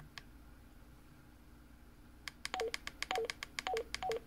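Baofeng BF-18H handheld radio's keypad beeps as a key is pressed over and over to scroll through the memory channel list: a fast run of short two-note beeps stepping down in pitch, about two a second, starting about two seconds in. Before that, only a single faint click.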